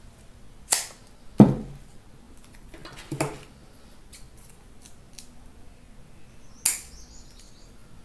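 Handling sounds: four short, sharp clicks and knocks, the loudest about a second and a half in, as a ceiling-fan stator is set down on a table and a cutting blade and steel ruler are picked up.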